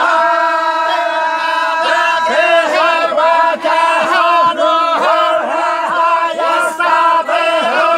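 A group of men, Moroccan tolba, chanting religious text in unison, with a steady melodic line and rhythmic syllables.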